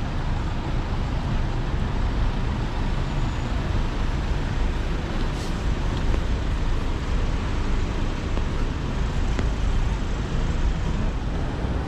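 Steady city street traffic noise: a continuous low rumble of cars and buses driving past.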